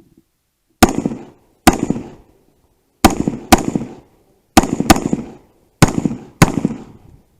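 Eight gunshots from a competition firearm, mostly in quick pairs, each with a short echoing tail.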